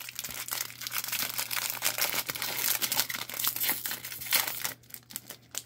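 Trading card pack wrapper of a 2022 Panini Donruss UFC pack being torn open and crinkled by hand: a dense run of crackles that thins out near the end.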